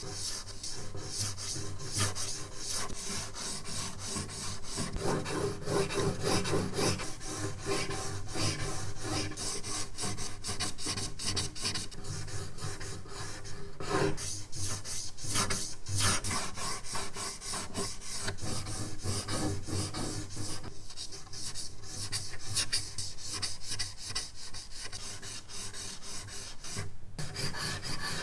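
Charcoal stick scratching across drawing paper in quick, repeated sketching strokes.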